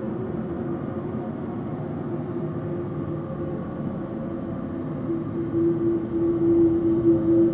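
A steady low drone: rumbling noise with a humming tone running through it that grows stronger and louder over the last couple of seconds.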